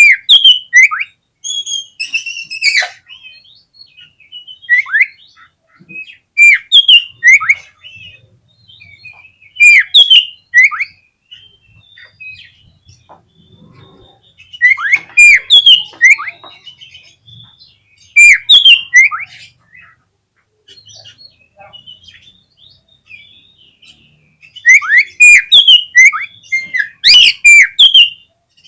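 Oriental magpie-robin (kacer) singing in loud phrases of rapid, varied whistles and sharp chirps. The phrases come every few seconds with quieter pauses between, the bird in full, excited song.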